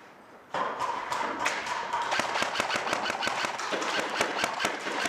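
Airsoft guns firing rapid, irregular bursts of shots, starting about half a second in and running on in quick succession.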